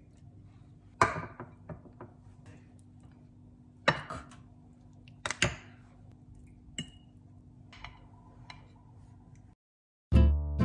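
Serving utensils clinking and knocking against ceramic dishes as food is scooped onto plates: a few sharp clinks, one with a short ring, over a low steady hum. Near the end, acoustic guitar music starts.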